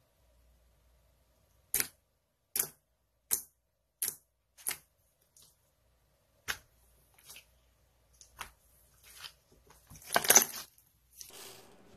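Clear slime clicking and popping as fingers press and stretch it, with a series of short sharp pops about a second apart. Near the end comes a longer, louder wet crackle as hands squash a glittery slime.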